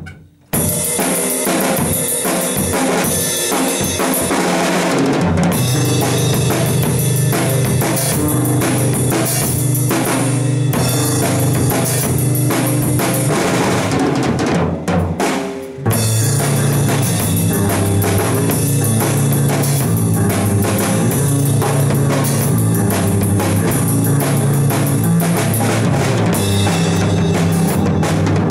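A drum kit played live in a jam, kick and snare going steadily, with low held notes from another instrument joining about five seconds in. The playing dips briefly a little past the middle, then starts again.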